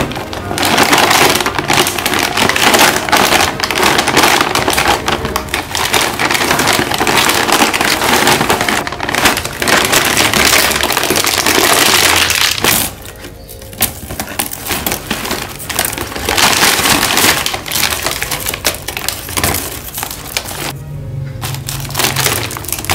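Metallised-film snack bags crinkling and rustling loudly as they are held open and snack pieces are picked out, with a quieter spell about halfway through.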